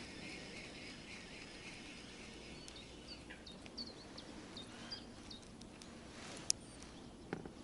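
Small birds chirping: a string of short, high chirps over a faint outdoor background, with a single sharp click about six and a half seconds in and a couple of soft knocks near the end.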